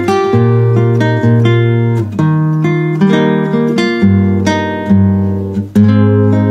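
Acoustic guitar music: strummed chords ringing out, with a new chord about every second.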